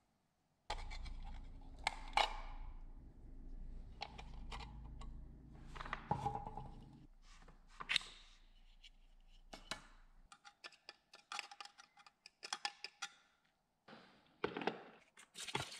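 Clicks, taps and scrapes of the thin rusty sheet-metal parts of an old flashlight being handled and worked with needle-nose pliers, with a quick run of light clicks past the middle. Near the end come knocks as the flashlight body is set down into a plastic tub.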